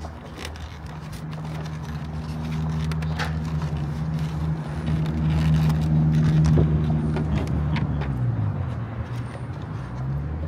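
A motor vehicle's engine running close by, growing louder over several seconds. Its pitch dips and then climbs again about eight seconds in, with scattered light clicks over the hum.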